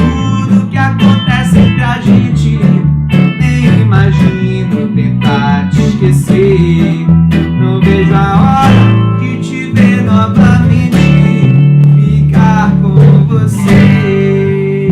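Acoustic reggae-pop band playing an instrumental passage: acoustic guitar strumming a steady rhythm over a bass line.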